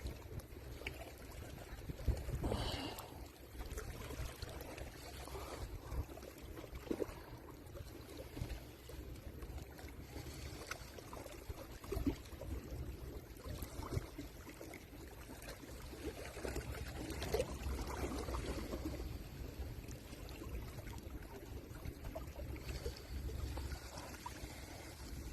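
Water lapping and trickling against rocks, with wind rumbling on the microphone.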